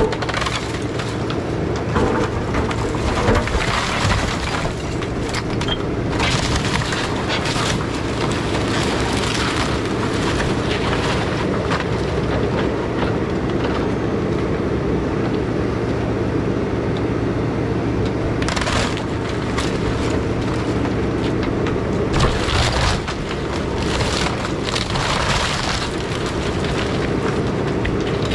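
Takeuchi TB2150 excavator's diesel engine running steadily under hydraulic load as its bucket and thumb tear into a wood-frame house. Repeated cracking, breaking and crashing of timber framing, roofing and debris sound over the engine.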